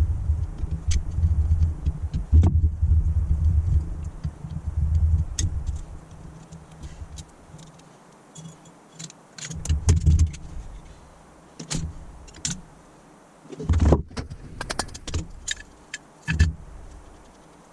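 Small metal parts clinking and knocking as a Holley four-barrel carburettor is taken apart. A low rumble underneath dies away about six seconds in, leaving scattered clicks.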